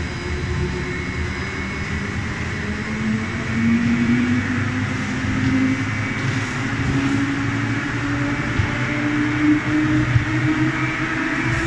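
Spindle veneer rotary lathe running, a steady mechanical machine noise with a motor hum that slowly rises in pitch from about four seconds in.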